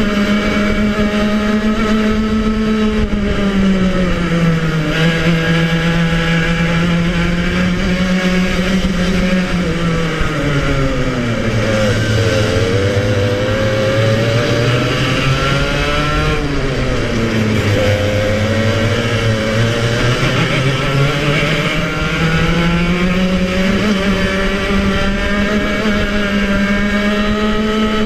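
Club100 115cc TKM two-stroke kart engine running at racing revs, heard onboard. Its pitch sags a little early on, falls further to a low plateau through the middle, then climbs steadily back to high revs in the last few seconds.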